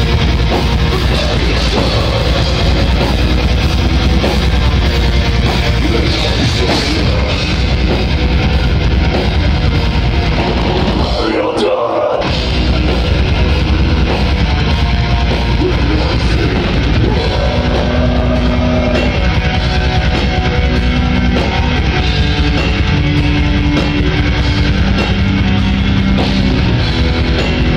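Live heavy metal band playing at full volume: distorted electric guitars, bass and drum kit, dense and overdriven. The low end drops out for a moment about twelve seconds in.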